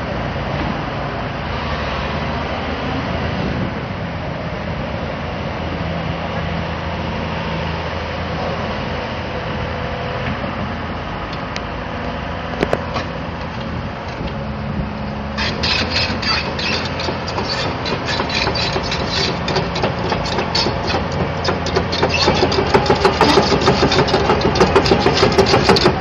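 2010 Hyundai Robex 300LC crawler excavator's diesel engine running steadily. About fifteen seconds in, a dense rapid clatter of steel track links joins in as the machine travels, growing louder toward the end.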